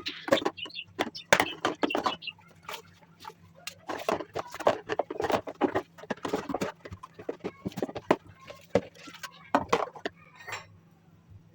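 Irregular clicks and knocks of small objects being handled, many coming in quick succession, with a short lull about two seconds in.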